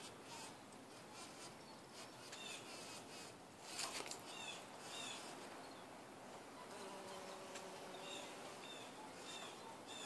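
Faint buzzing of a bumble bee working the flowers, most audible in the second half. Short high chirps repeat through it, and a brief burst of noise comes about four seconds in.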